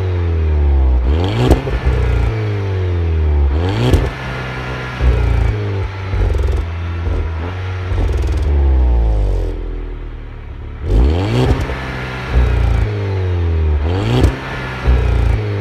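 Volkswagen Golf 6 GTI's stock turbocharged 2.0-litre four-cylinder engine and exhaust, revved again and again: about six sharp blips, each followed by the revs falling back, with a short lull at idle about two-thirds of the way through.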